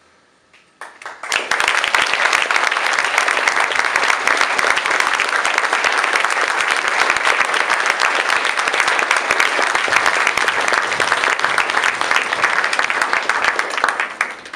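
Audience applauding. The clapping breaks out about a second in, swells quickly to a dense, steady ovation, and stops abruptly at the end.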